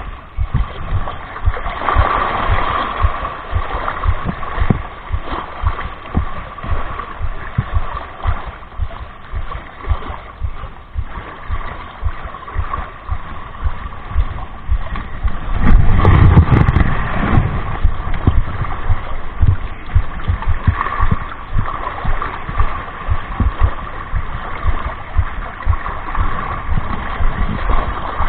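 Wind buffeting the microphone over water lapping against shore rocks, louder for a couple of seconds a little past halfway.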